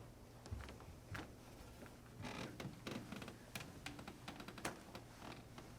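Faint, scattered small clicks, taps and creaks in a quiet room over a steady low hum.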